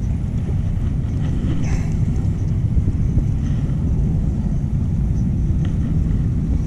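Steady low outdoor rumble throughout, with a few faint soft ticks and rustles from a soft-plastic swimbait being handled and threaded onto a hook.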